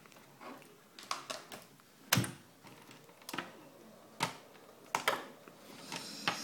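Irregular clicks and knocks of test leads and equipment being handled on a wooden desk, about a dozen, the loudest about two seconds in. Near the end the oscilloscope is switched on and a steady hum and hiss starts up as it warms up.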